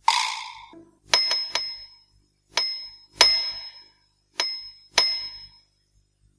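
A small high-pitched bell struck several times at uneven intervals, each ring fading out within about half a second. It opens with a short noisier burst.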